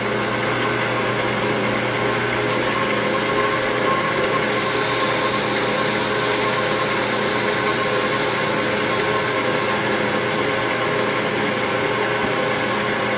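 Metal lathe running steadily as its cutting tool faces off the end of a lead-alloy plug set in a bored pipe. A higher hiss of the cut comes in about two seconds in and fades out a few seconds before the end.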